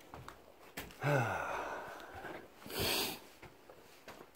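A man's low voiced sigh, falling in pitch about a second in and trailing off into breath, then a short hushing burst of breath near three seconds.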